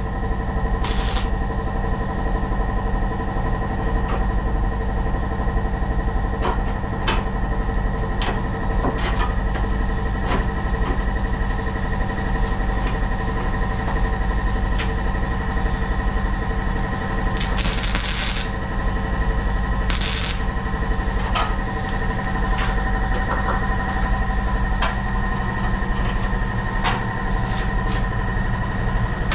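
A machine running steadily, with scattered sharp clicks and a short burst of hiss about two-thirds of the way through.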